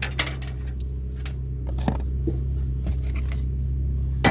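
Scattered scrapes and clicks of hand tools and metal parts being worked while loosening the base of a radial arm saw, over a steady low hum.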